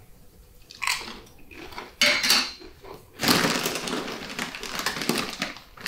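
Crinkly plastic snack packets rustling as hands rummage through them in a cardboard box. A couple of short rustles come near the first and second seconds, then a long dense crinkling starts about three seconds in.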